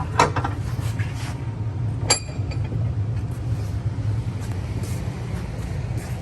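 Steel maul head being worked while it is straightened: a metallic clank just after the start and a bright ringing clink about two seconds in, over a steady low machine hum.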